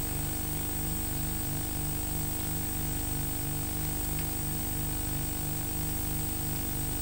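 Steady electrical hum and hiss of an old tape recording, with a high whine and a low buzz that pulses about three times a second.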